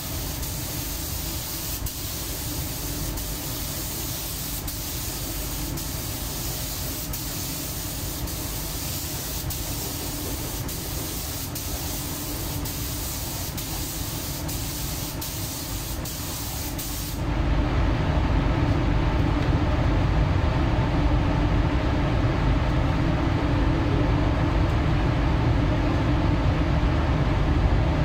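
Compressed-air paint spray gun hissing steadily as it sprays a coat of paint onto a car's body panels. About two-thirds of the way through, the high hiss drops away and a louder, lower rumble takes over.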